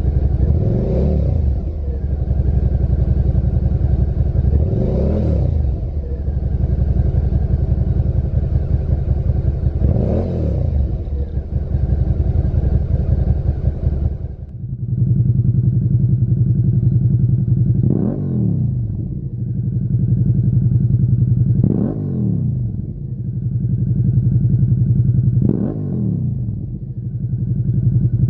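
A Suzuki SV650's 645 cc V-twin idles and is blipped three times through its stock silencer, each rev a quick rise and fall in pitch. After a cut about 14 seconds in, the same engine idles with a stronger low note through a Lextek GP1 aftermarket silencer and is blipped three more times.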